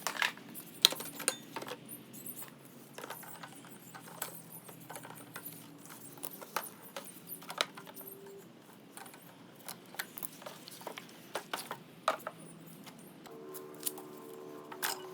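Irregular clicks and metallic clinks of hand tools and small metal parts while a Briggs and Stratton mower's carburettor is unbolted.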